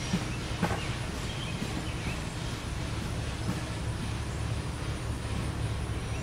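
Steady low rumble of the Denton Farm Park No.9 steam train's cars rolling away along the track, with a sharp click about half a second in.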